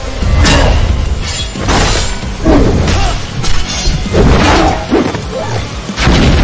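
Cartoon fight sound effects: a quick run of crashing, shattering impacts, roughly one every half second, over background music.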